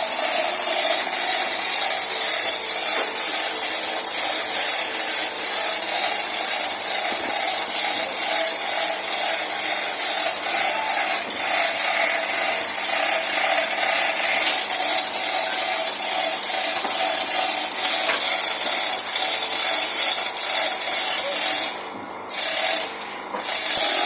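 A power tool running steadily with a harsh, rasping abrasive sound and a steady whine underneath. It cuts out and restarts twice in the last few seconds.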